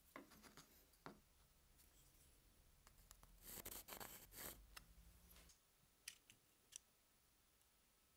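Faint scratch of a carpenter's pencil drawn along a steel ruler across a hardwood block, about three and a half seconds in and lasting about a second. A few light taps and clicks come before and after it.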